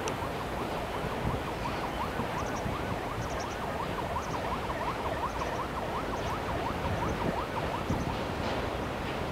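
Freight train rolling across a steel truss railway bridge, heard from a distance under heavy wind noise on the microphone. For several seconds a fast run of short rising squeaks comes from the passing wagons, about five a second.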